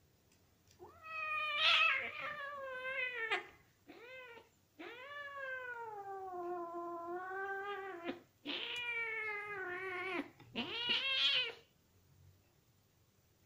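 Cat yowling during rough play-fighting between a mother cat and her kitten: five drawn-out cries in a row, one of them brief and the longest over three seconds, sagging slightly in pitch.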